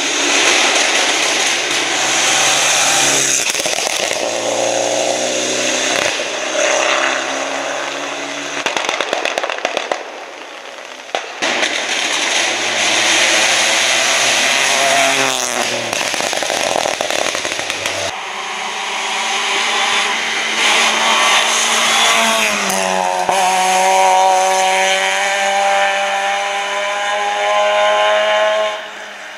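Several rally cars passing at speed one after another, their engines revving high with the pitch jumping up and down as they accelerate and lift through the bends.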